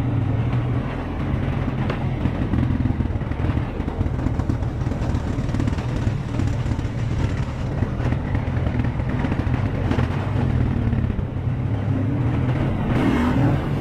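ATV engine running steadily while riding off-road, a rough low drone, revving up briefly near the end.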